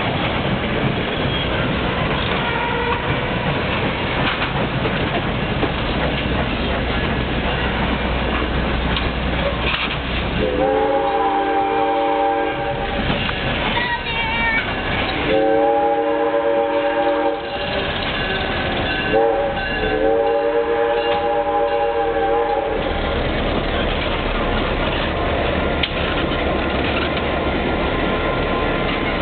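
A passing train runs along the track. Its steam locomotive's chord whistle sounds the grade-crossing signal starting about ten seconds in: two long blasts, a short one, then a long one.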